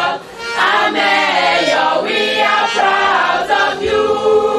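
A mixed choir of men and women singing together, with a brief dip just after the start and a long held note near the end.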